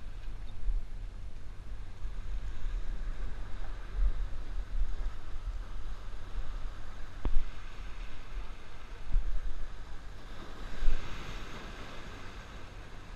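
Wind gusting against the microphone with waves washing and surging, the surf swelling for a couple of seconds near the end; one sharp click about halfway through.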